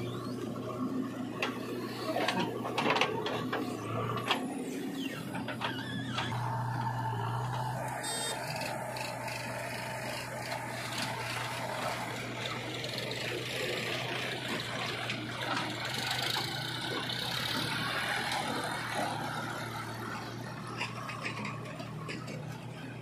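Diesel engines of a JCB 3DX backhoe loader and a John Deere tractor running steadily at work. Sharp knocks and scrapes come in the first few seconds as the backhoe bucket digs into the soil.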